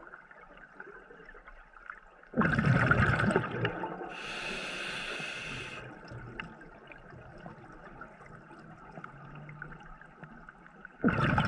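Scuba breathing heard underwater: a loud rush of exhaled bubbles about two seconds in, followed by a steady hiss from the regulator as air is drawn in, then another rush of bubbles near the end.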